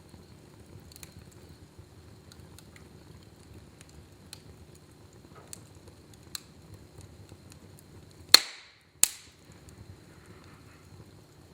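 Wood fire burning in a fireplace, crackling with scattered small ticks over a faint low hiss. Two loud sharp pops come about eight and nine seconds in.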